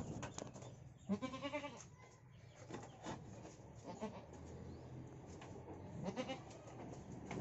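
Goat bleating: one loud, quavering bleat about a second in, then two softer bleats about four and six seconds in. These are distress calls from a goat that had just been caught in the pen's floor.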